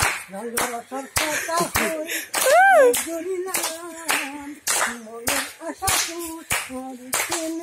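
Rhythmic hand clapping, about two to three claps a second, keeping a beat with a voice singing along in held notes; about two and a half seconds in, the voice gives one rising-and-falling call.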